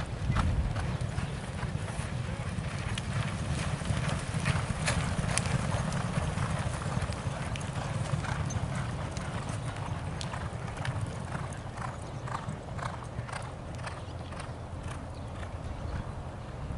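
Hoofbeats of several racehorses galloping on a dirt track, a rapid drumming of strikes. It is loudest early as they pass and fades as they move away.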